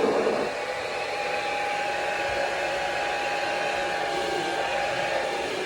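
Handheld hair dryer running steadily: an even rush of air with a thin, constant whine.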